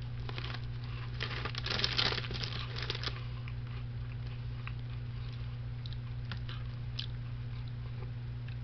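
Someone chewing a mouthful of TGI Fridays Extreme Heat crunchy fries, a dense spell of crisp crunching for about two seconds near the start, then only occasional fainter crunches.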